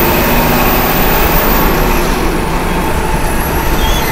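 Steady engine and road noise of an MSRTC state transport bus, heard from inside the passenger cabin as the bus gets under way.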